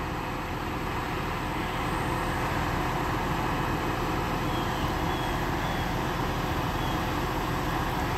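A vehicle engine running steadily: an even, unbroken drone with a constant low hum.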